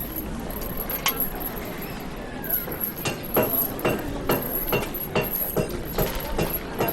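A regular clacking, about two to three sharp strikes a second with a clinking ring, starting about two and a half seconds in over a steady low city rumble.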